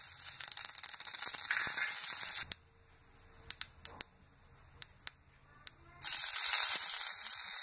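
Mustard seeds sizzling as they are poured into hot oil in a nonstick kadai, then a handful of sharp pops as the seeds start to crackle. Louder sizzling starts about six seconds in, as curry leaves go into the oil.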